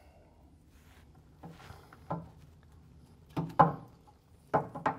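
A few short metallic clunks and knocks from a Classic Mini's rear suspension as the Hi-Lo adjuster, trumpet and knuckle joint are worked by hand to seat them. The loudest clunk comes about three and a half seconds in, with a quick cluster near the end.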